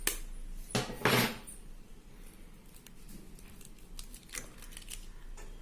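Soft kitchen handling noises as raw eggs are cracked and poured into a bowl: a short, sharper sound about a second in, then a few faint taps and rustles.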